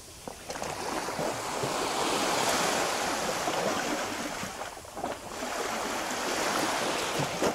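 Atlantic surf: small waves washing up over sand and running back, with no tones. The wash swells a moment in, dips briefly about five seconds in, then swells again.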